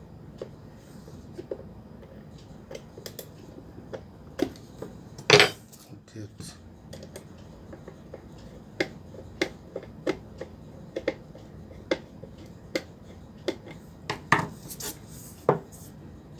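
Metal hand tool clicking and scraping against the rusted screws in an electric kettle's base as they are worked loose. There is one loud knock about five seconds in, then a run of sharp clicks roughly every half-second through the second half.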